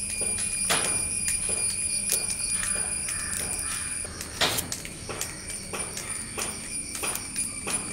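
Small irregular clicks and scrapes of a kitchen knife blade cutting and peeling the papery skins of shallots and garlic cloves held in the hand. The loudest click comes about four and a half seconds in, and a steady high-pitched whine runs behind it all.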